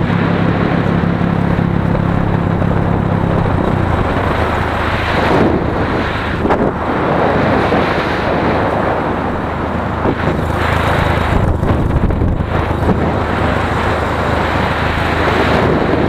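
Motorcycle engine running while riding, with wind rushing over the microphone; the engine note shifts lower about four seconds in.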